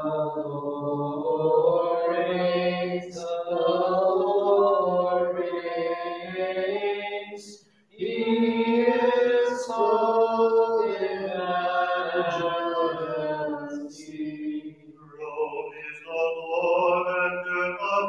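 Byzantine liturgical chant of Vespers, sung in long continuous phrases with a brief breath-break about eight seconds in.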